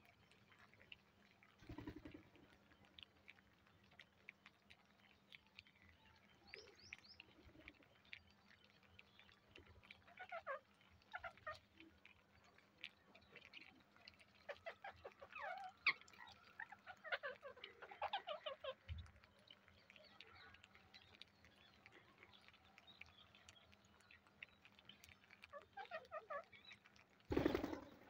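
Rose-ringed parakeets feeding on grain on concrete: faint, scattered clicking of beaks pecking and cracking seed, in denser runs now and then. A short louder thump comes near the end.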